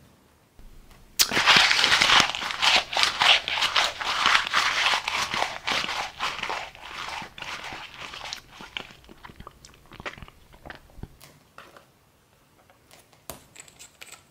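Small cardboard box being torn open and a squeeze tube pulled out of it: a dense run of crackling and tearing starting about a second in. It thins out to scattered fainter clicks of handling after about eight seconds.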